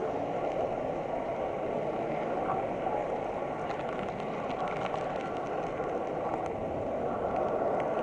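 Model train running along the track, heard from a camera riding on it: a steady rolling rumble with a faint steady whine, and a few faint clicks about halfway through.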